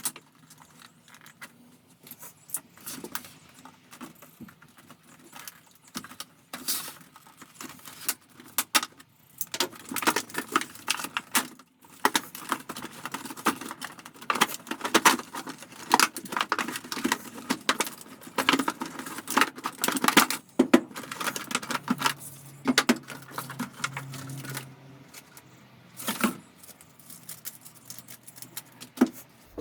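Sped-up time-lapse audio of tools and their packaging being unboxed: a dense, irregular clatter of rattles, clicks and rustling.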